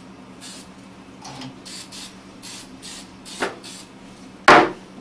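WD-40 aerosol can sprayed in about seven short, hissing spritzes into an opened laser printer to free up its jamming paper path. A single loud knock comes near the end.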